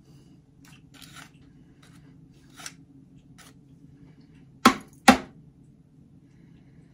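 A spatula spreading melted chocolate over a foil-lined metal baking pan: a few soft scrapes and taps, then two sharp knocks about half a second apart a little under five seconds in. A low steady hum runs underneath.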